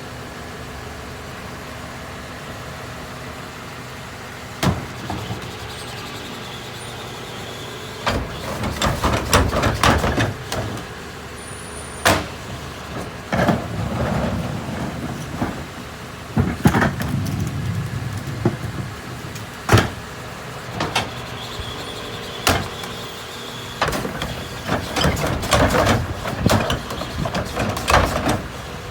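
Mini New Way rear-loader garbage truck running at idle while heavy trash is loaded and packed: a steady engine hum, then from about eight seconds in repeated bangs and clattering of refuse and metal in the hopper.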